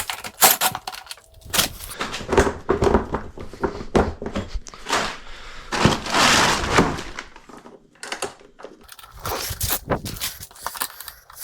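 Irregular knocks, clicks and scraping of hand tools and metal parts being handled while a dirt bike's fuel tank is unbolted, with a longer rustling scrape about six seconds in.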